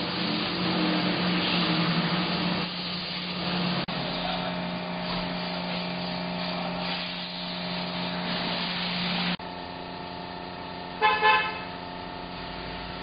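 Indmar Monsoon 340 V8 boat engine turning over for a compression test, a steady drone, with the compression gauge reading about 200 psi. After a sudden cut about nine seconds in, a quieter steady hum follows, with two short horn-like beeps close together about eleven seconds in.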